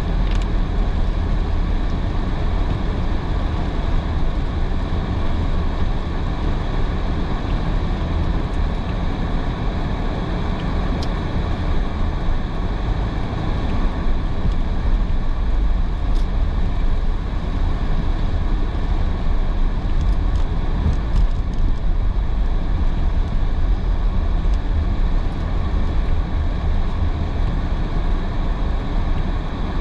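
Car driving in heavy rain: a steady low rumble of tyres on a wet road under an even hiss of rain and spray, with a few faint ticks.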